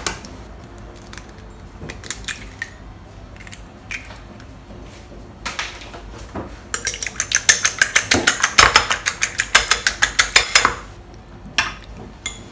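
A few scattered taps and clicks, then a fork beating a raw egg in a small ceramic bowl, clinking rapidly and evenly against the bowl for about four seconds, with two last taps near the end.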